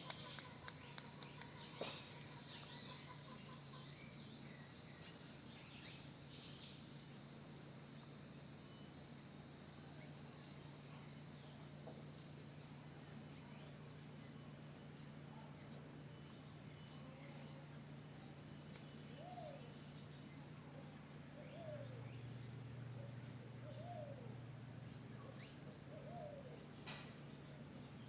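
Faint outdoor ambience with scattered bird chirps and tweets over a steady low hum, and a few short falling calls in the second half.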